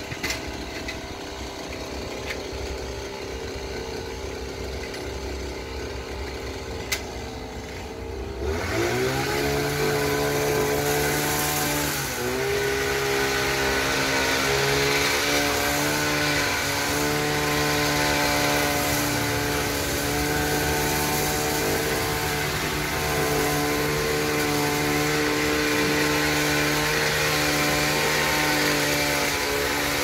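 Small engine of a petrol hedge trimmer, idling low and then revved up about eight seconds in. It holds at a steady high speed, with brief dips, as it cuts a conocarpus hedge.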